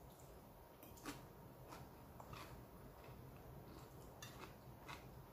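Near silence, broken by a handful of faint, short clicks of metal cutlery against a ceramic dinner plate.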